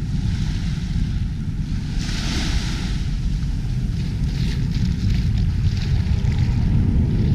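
Wind buffeting the microphone, a rough low rumble, over small waves lapping and washing on the sand; a louder hiss of wash swells about two seconds in.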